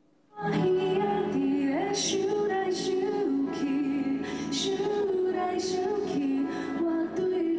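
A woman singing a slow melody with musical accompaniment, starting about half a second in.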